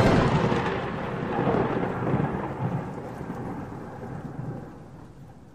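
Logo-intro sound effect: a loud crackling, thunder-like crash that hits at once and fades away over about five seconds.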